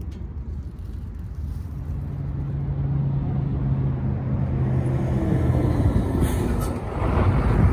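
A big truck's engine running and growing steadily louder as it draws near, with a steady engine hum through the middle and the loudest moment near the end.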